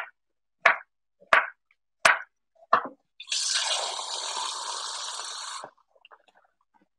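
Five sharp knocks, evenly spaced about every 0.7 s, then water running from a kitchen tap for about two and a half seconds, drawing water to thin a soup.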